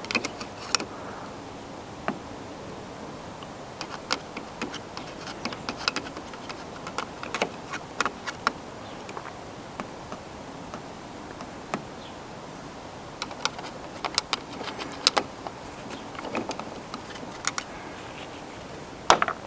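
Scattered light metallic clicks and taps from a bonnet latch assembly being handled while grease is worked into its release mechanism, over a steady background hiss.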